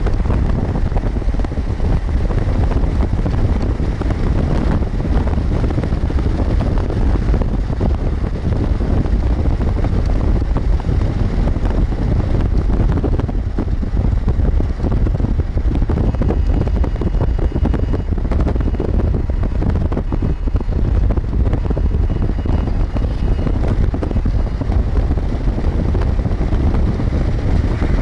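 Steady wind rushing over the microphone, mixed with the low road and engine rumble of a moving car.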